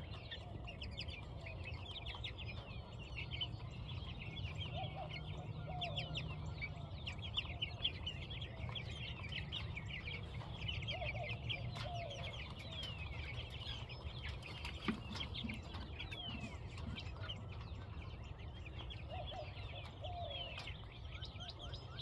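A flock of young meat chickens peeping, with many short, high cheeps overlapping without a break. A lower two-note call comes three times, and a steady low rumble runs underneath.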